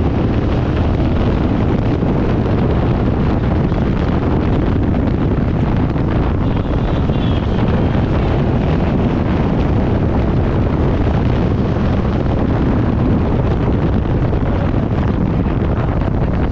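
Yamaha Ténéré 700's parallel-twin engine running steadily at riding speed, with its exhaust's dB killer removed, under heavy wind noise on the microphone.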